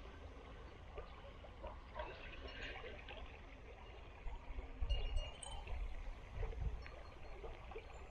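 Small river flowing, with scattered faint clicks and a few dull low thumps in the second half.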